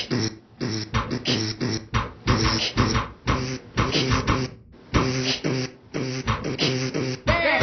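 Layered a cappella track of voices: beatboxed drum hits in a steady rhythm over hummed bass notes. A higher, wavering vocal line comes in near the end.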